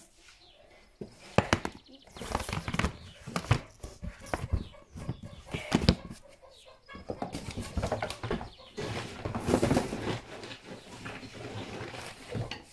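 Chickens clucking amid sharp knocks and rustling close by as horse feed is scooped into a feed bowl.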